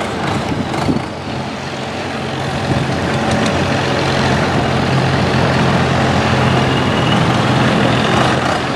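A long-tail boat's large inboard engine running hard, driving its long propeller shaft. It grows louder over the first few seconds, then holds steady.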